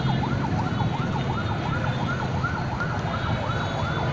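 Police car siren on a yelp setting, sweeping quickly up and down about two to three times a second, over the low rumble of slow-moving cars.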